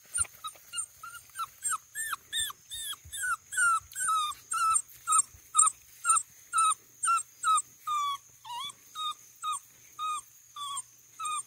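Basset hound puppy whimpering in a steady series of short, high whines, about two a second.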